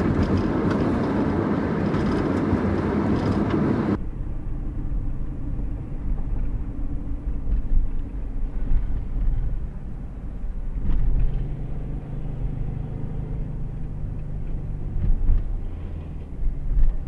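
Car road noise while driving at highway speed: a wide, hissy rush of wind and road for the first few seconds, then, after a sudden change about four seconds in, a duller low rumble heard from inside the car's cabin.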